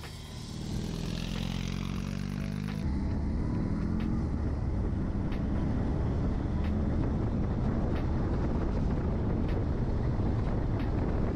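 BMW R 18 Transcontinental's 1802 cc two-cylinder boxer engine, growing louder over the first couple of seconds as the bike passes. About three seconds in the sound switches abruptly to a steady, rougher engine rumble as the motorcycle cruises.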